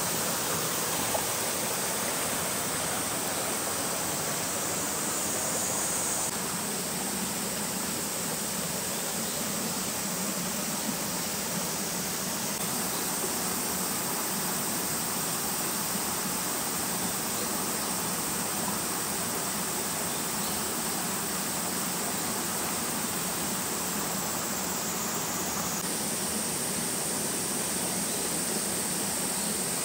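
Steady rushing of flowing water from a stream or waterfall, an even unbroken hiss with a small shift in tone about six seconds in and again near the end.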